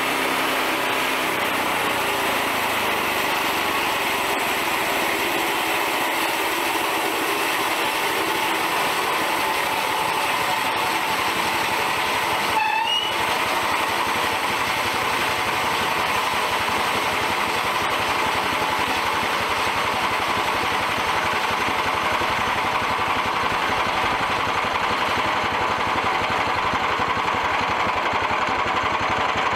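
Small gasoline engine on a portable band sawmill running steadily, with a brief break about halfway through.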